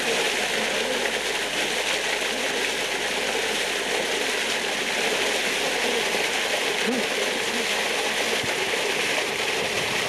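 Water gushing out of an opened outlet valve in a dam wall, a steady rushing and splashing.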